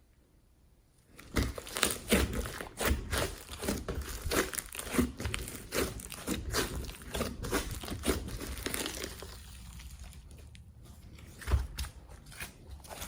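Glossy slime mixed with clay, glitter and foam being squeezed and stretched by hand, making dense crackling, clicking and popping squishes. It starts about a second in after near silence and carries on unevenly, easing off a little around ten seconds in before picking up again.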